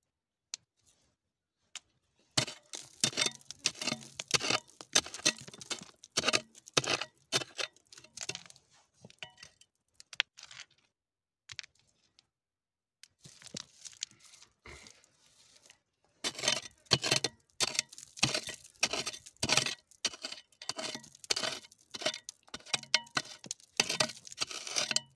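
Steel pry bar scraping and jabbing into a bank of packed clay and gravel, with quick runs of crunching scrapes and small stones cracking loose while crystals are dug out of the vein. It comes in two spells with a quiet pause in the middle.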